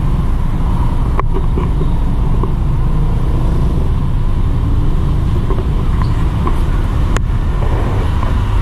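Steady low rumble of a running motor vehicle, with two sharp clicks, one about a second in and one near the end.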